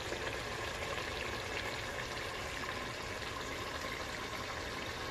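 Steady sizzling hiss of food cooking on a stovetop.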